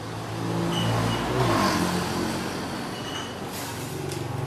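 A motor vehicle's engine running as it goes by, loudest about one and a half seconds in, then easing off.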